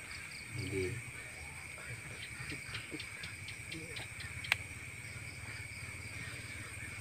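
Night insects trilling steadily, with a short low murmur just before a second in. A run of quick faint ticks follows, then one sharp click soon after.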